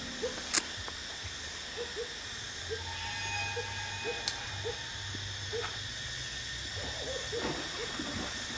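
An animal's short low calls, each a brief curved note, repeated irregularly every half second to a second and coming closer together near the end. A sharp knock sounds about half a second in and another about four seconds in.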